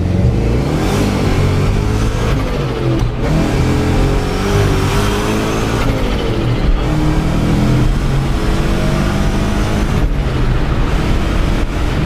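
Car engine at full throttle, revving hard through the gears in a street-race run. Its pitch climbs and drops back several times at the shifts, on a launch where the car couldn't hook up (get traction).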